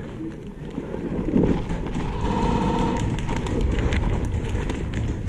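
Handling noise from a player in a ghillie suit moving and crouching with a body-worn camera: a steady rumble of rustling and knocks, with many scattered sharp ticks through the second half.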